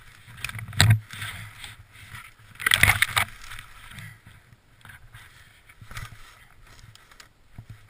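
A snowboarder thrashing through conifer branches and deep snow after a crash: branches scraping and rustling against clothing and the camera, and snow crunching. The noise comes in rough, uneven spells, loudest about one second in and again around three seconds in.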